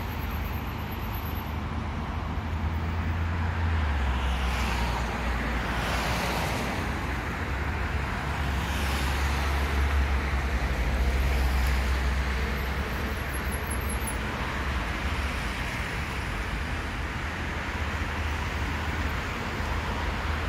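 Road traffic passing, with a few cars swishing by in the first half, over a steady low rumble.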